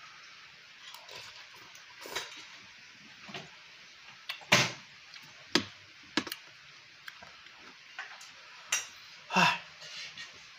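A person eating noodles and rice with a metal spoon from a bowl: scattered short clicks of the spoon against the bowl, with slurping and chewing. The sharpest click comes about halfway through, and a longer slurp comes near the end.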